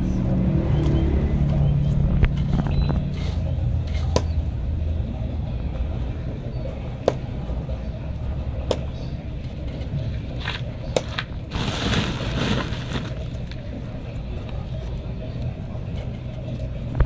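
Fingers pressing and shifting dark granular potting medium around bonsai roots in a cement pot, giving scattered small clicks and crunches and a rustling patch about twelve seconds in, over a steady low rumble that is louder in the first three seconds.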